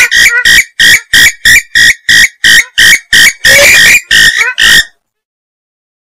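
Recorded purple swamphen breeding-season calls, played as a lure: a loud, fast series of short, harsh calls, about three a second, that breaks off about five seconds in.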